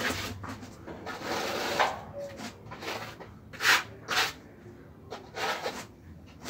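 Plastering float scraping over textured rubbed render (Reibeputz) on a wall, in a few separate strokes: a longer pass at the start, then short sharp scrapes a little after the middle and another near the end.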